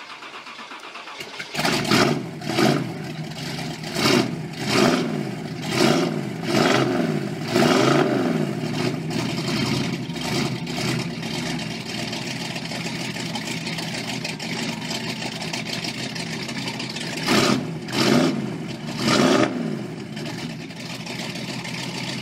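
A vehicle engine starts about a second and a half in and is blipped about seven times in quick succession, each rev rising and falling. It then settles into a steady idle, and is revved three more times near the end before idling again.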